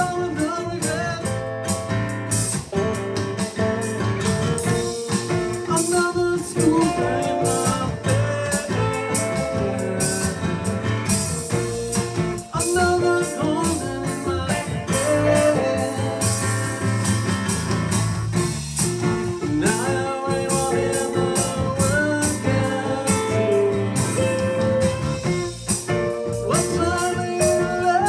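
Electric guitar tuned DADGAG jamming with an electronic drum kit played through a PA speaker: a steady groove with held and bending guitar notes over continuous drumming.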